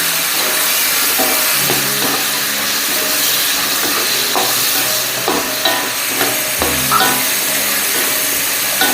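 Chicken and shrimp sizzling in a hot pan as they are stir-fried, with a steady hiss and short scrapes and knocks from the stirring.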